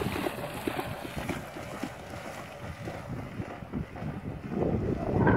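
Wind buffeting the microphone, growing louder near the end, over the scattered splashing of a large dog, a Dogue de Bordeaux, running out through shallow sea water.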